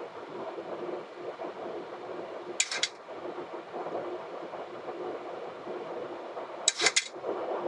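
Steady cockpit noise of a Boeing 737 in descent: airflow and air-conditioning hum with a low steady tone. Twice, about two and a half seconds in and again near the end, a short run of rapid sharp clicks cuts through.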